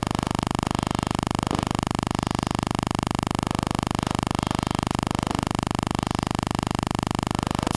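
A steady electronic-sounding drone on several fixed pitches, pulsing rapidly and evenly, with a few faint clicks.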